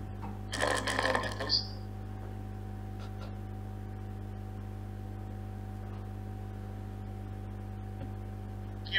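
A brief spoken phrase about a second in, then a steady electrical hum made of several fixed low tones.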